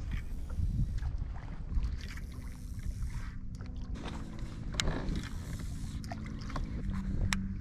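Kayak on open water with a low, gusty wind rumble on the microphone and water against the hull. A faint steady hum sets in halfway through, and there are a couple of sharp clicks.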